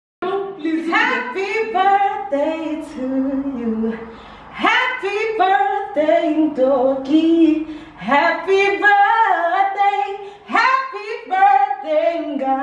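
Women singing a gospel hymn without accompaniment, in phrases of a few seconds with short breaks between them.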